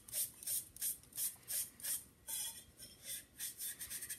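Damp sponge rubbed hard and fast back and forth over a carved porcelain pot, about three scrubbing strokes a second, wiping stain off the surface so that it stays only in the carved lines.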